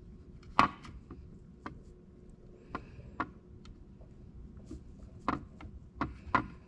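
Irregular light clicks and taps, about seven of them, as a soldering iron tip and hands work against a hard plastic switch panel while welding the plastic.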